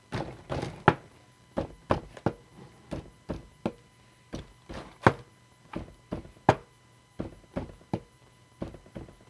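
A repeating percussive beat of dull knocks, mostly three at a time, with each group coming about every second and a half.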